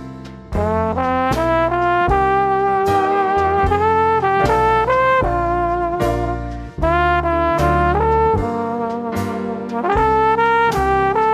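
Background music: a jazzy brass tune led by trumpets and trombones over a steady beat.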